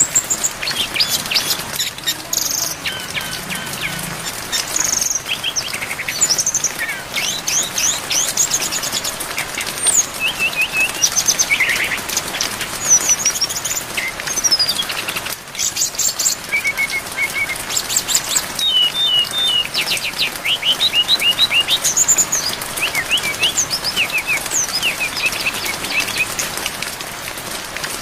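Brown-chested jungle flycatcher (sikatan rimba dada coklat) singing a varied, near-continuous string of short high whistled phrases, trills and rapid note series, over a steady hiss of rain.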